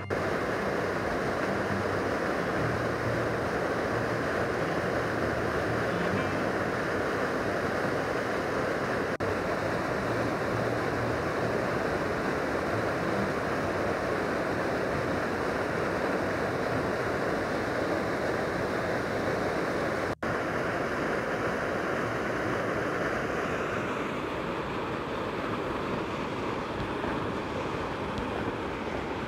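Waterfall of a snowmelt stream rushing steadily over rocks, with a brief break about twenty seconds in.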